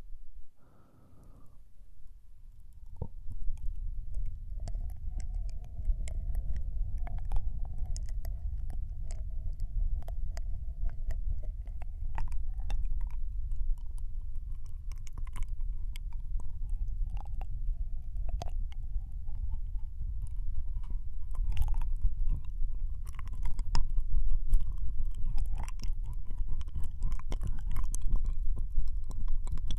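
Ear-licking ASMR into the right ear of a binaural microphone: wet mouth clicks and smacks close against the mic, over a steady low rumble from contact with it, growing louder toward the end.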